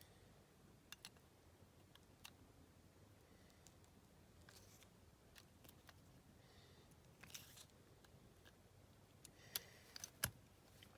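Faint, scattered clicks and light scrapes of a small screwdriver tightening the screws into the base of a diecast toy car, with a sharper click near the end.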